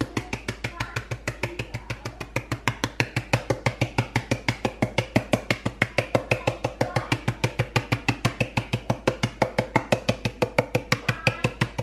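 Background music with a quick, steady beat, about six strokes a second.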